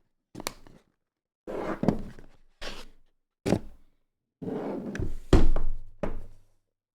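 Handling noises from a box and its packaging being opened: a run of about six short thunks and scrapes, the loudest a heavy thump about five seconds in.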